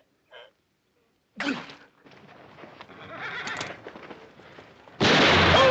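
A horse whinnies about a second and a half in, followed by a scuffle of stamping hooves. Loud music bursts in near the end.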